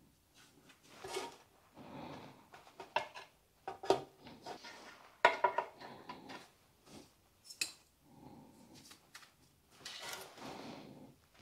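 Bonsai pot being fitted with mesh by hand: irregular clinks, taps and rustling, with the loudest knock about five seconds in.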